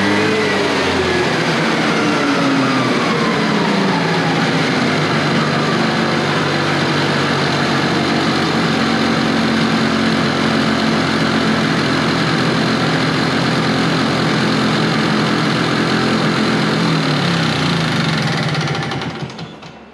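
1970 Evinrude Skeeter snowmobile's two-stroke engine running on the stand, driving the track. Its revs fall over the first few seconds. Then, held at a steady throttle, it hunts up and down and bogs, which the owner puts down to a fuel mixture jet set too rich. The sound drops away near the end.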